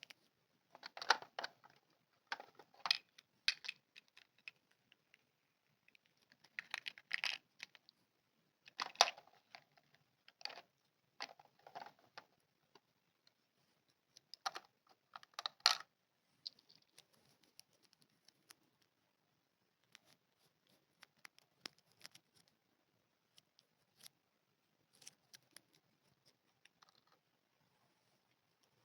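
Small packaging and plastic toy parts handled by hand: irregular crinkling, rustling and light clicks in short bursts, busier in the first half and thinning to a few faint ticks.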